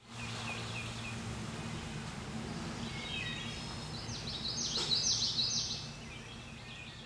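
Outdoor woodland ambience: songbirds chirping over a low steady hum, with a louder run of quick, falling song notes from about three and a half to six seconds in.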